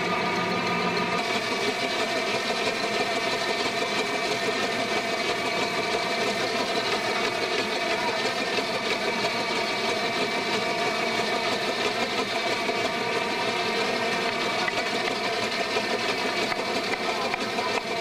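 Belt-driven steam sawmill running: the saw bench and its flat drive belts turning at speed, a steady mechanical hum with a high whine that does not change.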